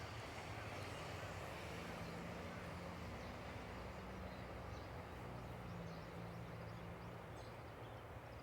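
Faint steady low rumble of a train moving away from the level crossing, with a few faint high chirps in the second half.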